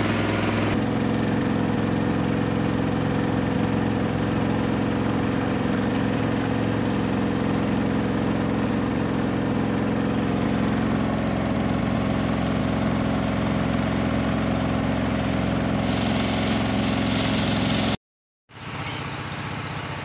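A small motorboat's engine running steadily under way. A brief hiss rises near the end, then the sound cuts out abruptly for about half a second and comes back quieter.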